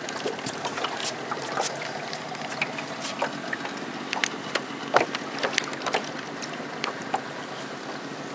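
Water lapping and splashing against the side of a small aluminium boat, with many irregular sharp ticks and knocks over a steady background of water noise; the loudest knock comes about five seconds in.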